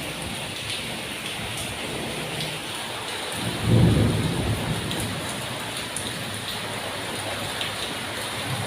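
Heavy monsoon rain falling steadily, with a brief low rumble about four seconds in.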